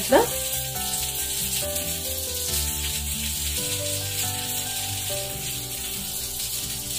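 Soft instrumental background music of held notes that change pitch every second or so over a low bass, with a faint steady hiss.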